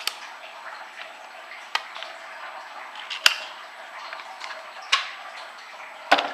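Sharp metal clicks and clacks of an AR-15 being broken down by hand, its upper and lower receivers handled apart. There are about five separate clicks, more than a second apart, the loudest a little past halfway and near the end.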